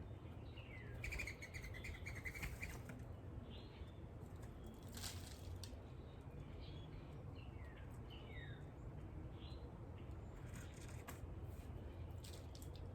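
Small birds at a backyard feeder chirping with short, falling notes, with a quick trill about a second in. Brief wing flutters come several times, over a steady low background rumble.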